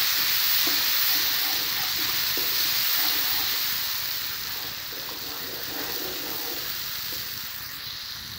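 Chopped onions and garlic sizzling in ghee in a non-stick wok, stirred with a wooden spoon. The steady sizzle eases off a little about halfway through.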